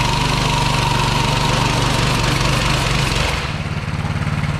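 Mini bike's small single-cylinder engine running hard as its rear tire spins on the concrete floor in a burnout, with a steady tire squeal and hiss over the engine. A little over three seconds in the tire noise stops and the engine drops back to a lower, steady run.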